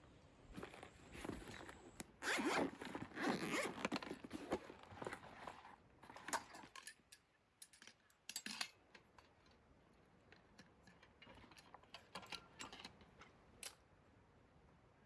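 A zipper being pulled in several long strokes, loudest about two to four seconds in, followed by scattered light clicks and scrapes.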